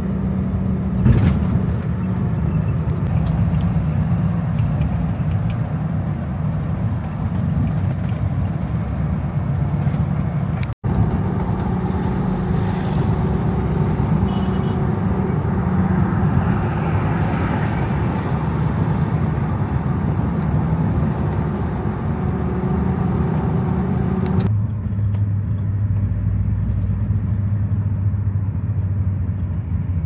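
A motor vehicle's engine running with a steady low drone. The sound drops out for an instant about eleven seconds in, and near the end it shifts abruptly to a lower, thinner drone.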